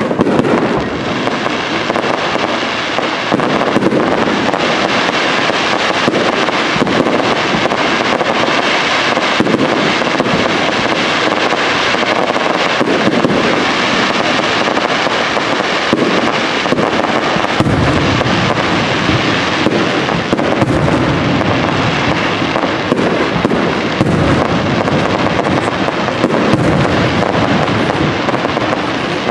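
Professional aerial fireworks display: shells bursting in a continuous, dense barrage of bangs and crackling. Heavier low bangs come in a little over halfway through.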